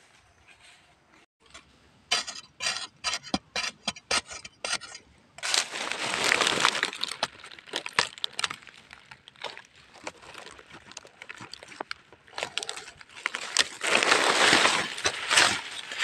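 Dry fallen leaves crackling and dry, crumbly soil scraping as a hand digs into the forest floor: first a run of short sharp scrapes, then two longer stretches of loud crackly rustling.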